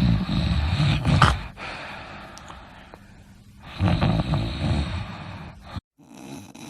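Snoring: two long, loud snores about three seconds apart, the first ending in a sharp snort. The sound cuts off abruptly near the end.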